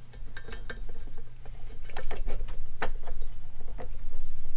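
Irregular clicks and knocks of hard plastic parts being handled, as a backup camera is worked by hand into the groove of its tire-carrier mount.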